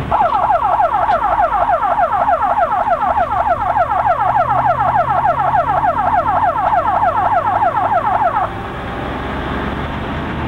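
Ambulance siren heard from inside the ambulance: a fast, repeating wail of about five falling sweeps a second that stops abruptly near the end. The vehicle's engine hums underneath.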